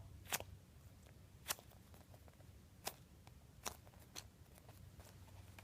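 Near silence, broken by about five faint, short clicks of a soft foam squishy toy being handled.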